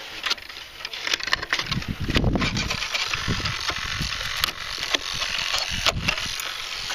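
Landing gear being cut and torn out of a foam RC airplane: a run of sharp cracking, snapping and crunching, with a few heavier thuds about two seconds in.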